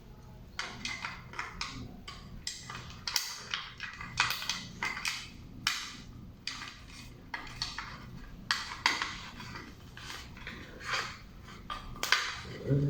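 Irregular clicks and knocks of small hard objects being handled, with some strokes coming in quick clusters.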